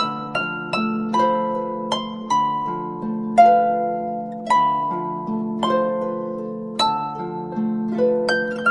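Samsung phone ringtone: a slow melody of plucked notes, each struck sharply and dying away, over low held chords that change every couple of seconds.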